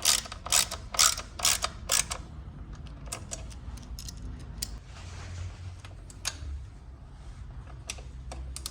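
Ratchet wrench tightening a bolt: a run of quick ratcheting strokes, about two a second, for the first two seconds, then only a few faint clicks and taps.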